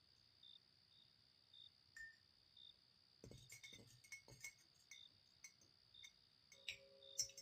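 Faint crickets chirping steadily, with a run of light clinks of spoons against plates and glass bowls from about three seconds in.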